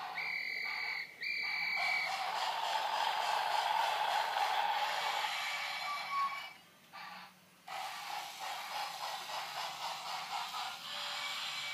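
Battery-powered wooden toy trains running on wooden track, their small geared motors whirring with a rasping grind. Near the start there are two short electronic beeps.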